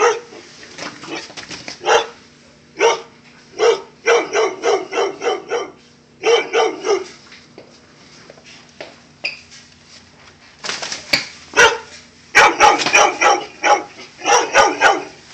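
Pit bulls barking in rapid runs of short barks, with a lull of about three seconds near the middle. It is alarm barking at their owner dressed as a clown.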